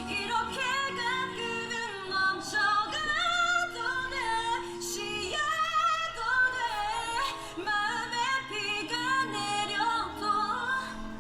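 A woman singing a slow ballad solo, holding long wavering notes, over a soft backing track.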